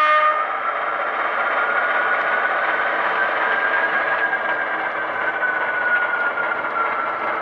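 Sound-equipped HO scale model diesel locomotive running, playing an engine drone with a whine that slowly rises and then falls back as it moves a cut of freight cars. The last of a horn blast cuts off right at the start.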